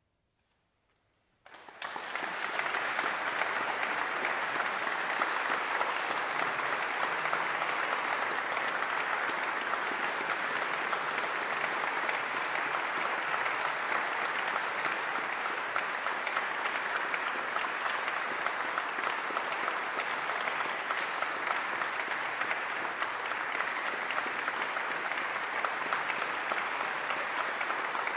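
Audience applauding. The clapping starts suddenly out of near silence about a second and a half in, then holds steady and dense.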